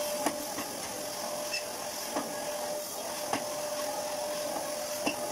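Canister vacuum cleaner running steadily, a constant whine over its motor hiss, with four short light knocks spread through.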